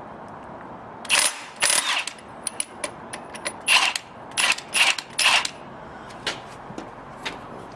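Ratchet wrench clicking in a run of short back-strokes, about seven in four seconds, then a few light ticks near the end, as a part of a screw compressor's slide valve assembly is unscrewed.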